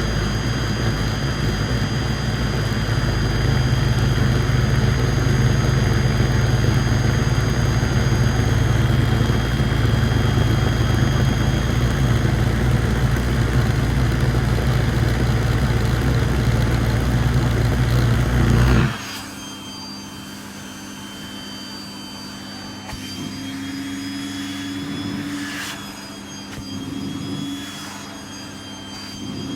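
Vacuum cleaner motor running steadily with a loud even whoosh of suction, then switched off abruptly about two-thirds of the way through, leaving only a faint steady hum.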